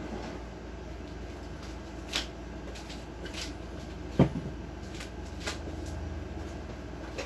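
A few scattered knocks and clicks of things being handled, the loudest a single thump about four seconds in, over a steady low hum.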